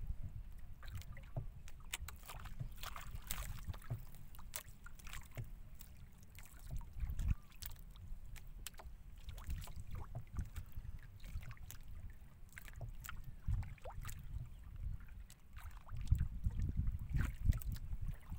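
Small waves lapping and splashing against the hull of a drifting outrigger boat, with many short irregular slaps. Underneath is a low wind rumble on the microphone that gets stronger near the end.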